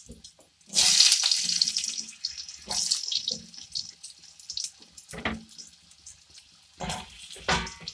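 Potato pieces dropped into hot oil in a metal kadai, sizzling sharply on contact in several bursts, the loudest about a second in, then dying back between drops.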